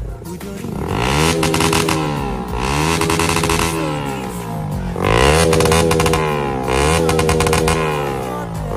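Bajaj Pulsar motorcycle engine revved through an aftermarket SC-style slip-on exhaust. There are about four blips of the throttle: each rises quickly, holds high for about a second, then falls back toward idle.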